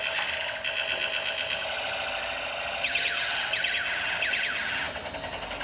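Battery-operated toy robot playing tinny electronic sound effects, with a quick run of repeated zapping sweeps near the middle.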